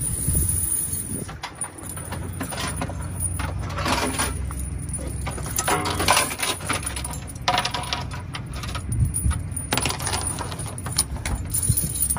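Steel snow chains for a semi-truck tire clinking and rattling as they are gathered up by the hook end and handled, in irregular bursts of metallic jingling.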